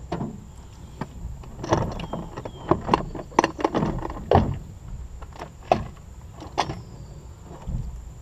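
Irregular knocks, clicks and clunks of fishing gear being handled in a jon boat, including a box at the angler's feet, with the loudest knocks near the middle.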